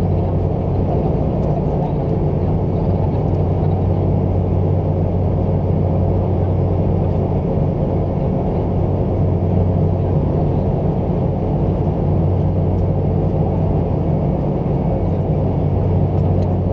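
Steady in-flight cabin drone of a Boeing 717's two Rolls-Royce BR715 turbofan engines and airflow, a deep, even rumble with a faint steady hum riding on it.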